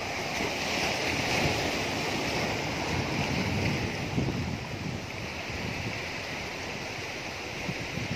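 Sea surf washing steadily against a rock breakwater, with wind on the microphone.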